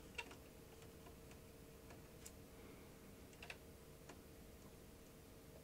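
A few faint small clicks of a pinch roller and its parts being pressed back into a Philips DCC900 tape mechanism by hand, over a faint steady hum.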